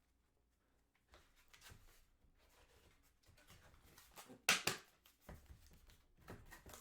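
Trading cards and packaging being handled: intermittent rustling and sliding, with one louder sharp rustle about four and a half seconds in.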